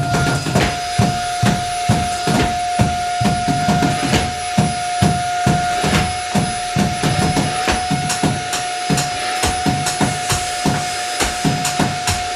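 Improvised percussive noise music: a steady beat of low thuds about two a second under a sustained drone tone.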